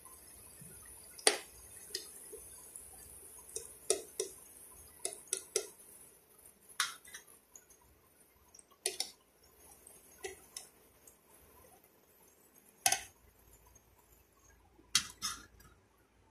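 A steel slotted spoon clinking and tapping against a frying pan as vadai are turned and lifted out of hot oil, in scattered single knocks with a quick double clink near the end. Under it, a faint sizzle of the oil.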